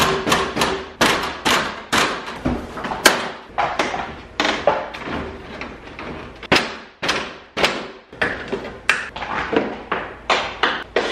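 Plastic grille and front bumper cover of a Chevy Colorado knocking and thumping, two or three uneven knocks a second, as the grille is pushed and pulled to free its retaining clips from the bumper.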